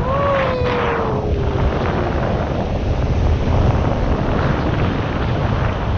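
Steady wind buffeting the camera's microphone while it is airborne under a parasail. Near the start, a single drawn-out tone falls slowly in pitch over about two seconds.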